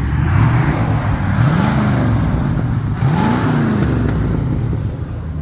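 Car engine revving three times, each rev rising in pitch and dropping back, over a steady low engine rumble.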